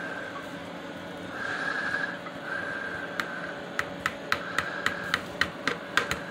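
Thick sauce being emptied from a plastic bowl into a slow cooker's crock. From about halfway there is a quick run of sharp taps, about four a second, as the bowl is worked to get the last of the sauce out.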